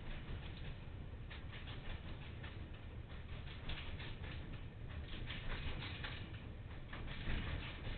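Freight train rolling slowly into the station: a low rumble with irregular clicking and rattling from the wagons.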